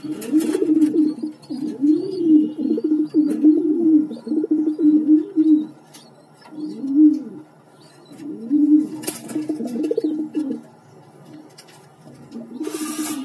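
Domestic pigeons cooing: low coo phrases that rise and fall, repeated one after another with a break about halfway through and another near the end. A few short rustling noises come in, the longest near the end.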